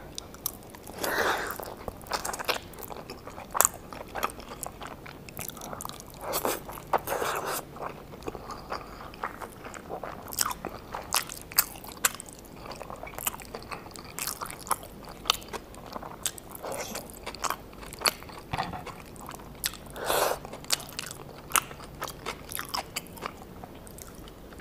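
Close-miked eating of birria tacos: crunchy bites into the fried tortillas and chewing, with many short crackles throughout and a few louder bites.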